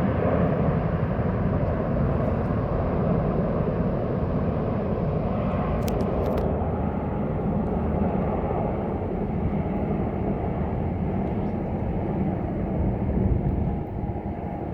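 Formation of military helicopters, Black Hawks, a Chinook and Bells, flying past with a steady low rumble of rotors and turbine engines. The rumble eases slightly near the end.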